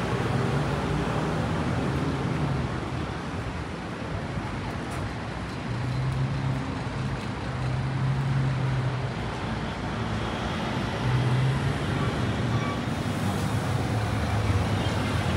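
City street traffic: motor vehicles passing, a steady road noise with a low engine hum that swells and fades several times.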